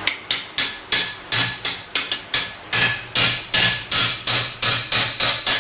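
Hammer blows on a combination wrench set against a core plug (freeze plug) in a cast-iron engine block, driving the plug out. There are about three sharp metallic strikes a second at a steady pace, each ringing briefly.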